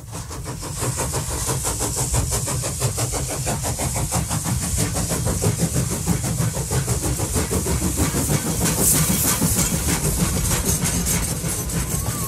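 Steam-hauled train running, heard from an open carriage window: a steady low rumble of wheels on rail with rapid fine clatter and a high hiss.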